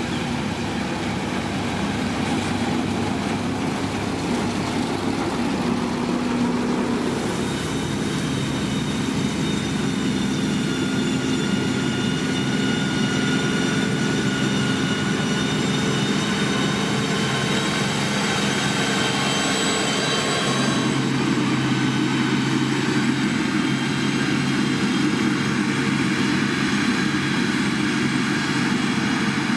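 Heavy road-building machine's diesel engine running steadily. A high whine rides over it from about 7 seconds in until about 21 seconds in, when the engine note changes.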